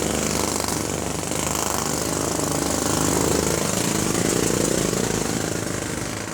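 Jackhammer hammering rapidly and continuously, with the low drone beneath it changing about four seconds in.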